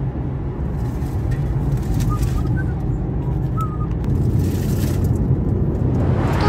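Steady low road and tyre rumble inside the cabin of a Volkswagen Golf GTE driving at road speed.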